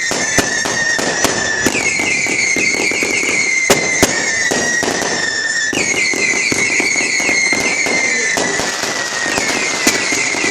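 Firework display going off continuously: dense crackling with sharp bangs, loudest a little under 4 s in. Shrill whistling fireworks rise over it in fresh volleys about every four seconds, each whistle dropping slightly in pitch.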